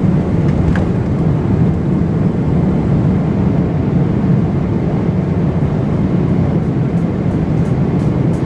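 Boeing 777 cabin noise: a steady low rumble of engines and airflow heard from inside the passenger cabin. A faint, quick ticking joins about halfway through.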